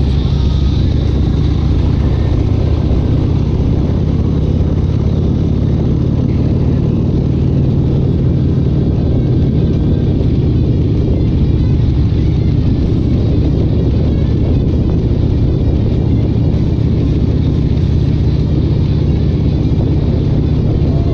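Loud engine running steadily, a deep continuous rumble with no clear revving.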